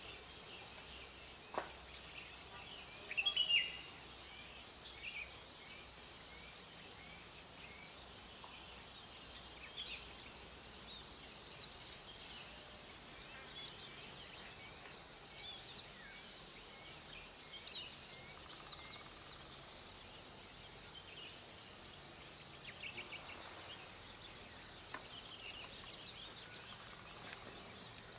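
Steady high drone of insects, with small birds chirping on and off throughout. A louder burst of chirps comes about three seconds in.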